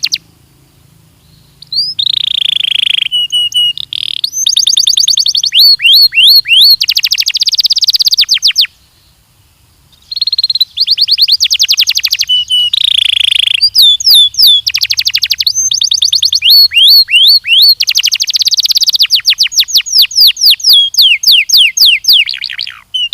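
Belgian canary singing: fast trills of rapidly repeated notes and quick sweeping whistles, in phrases broken by two short pauses, about a second in and about nine seconds in.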